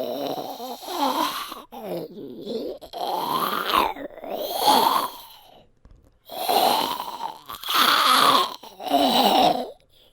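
A man's voice performing zombie growls and grunts: a run of about seven rough, guttural growls, each a second or so long, with short breaks between them.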